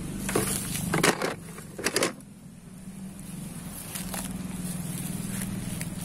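Dry grass and leaf litter crackling and rustling in three short bursts within the first two seconds, then quieter, over a steady low hum.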